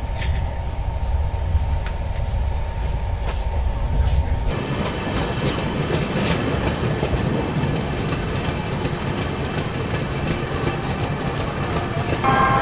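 Indian Railways express train running on its rails, first a deep rumble heard inside the air-conditioned coach. About four and a half seconds in it switches abruptly to the louder rush and clatter of wheels on track, heard from the coach door as the train rolls into a station.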